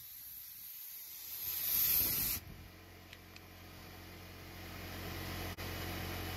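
Compressed air hissing out of a Porter-Cable DA250B finish nailer, which is leaking because its collar has broken. The hiss grows louder, then cuts off suddenly about two and a half seconds in. A low steady hum follows.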